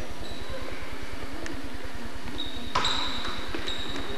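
Steady low hum of a gymnasium during basketball practice, with a few faint sneaker squeaks on the hardwood court starting a little past halfway.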